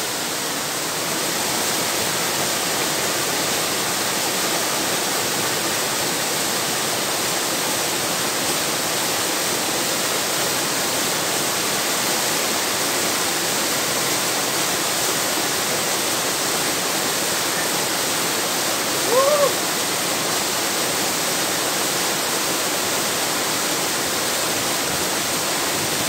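Waterfall sliding down a rock face into a pool: a steady, loud rushing of water. About three-quarters of the way through, a person gives one short, rising whoop.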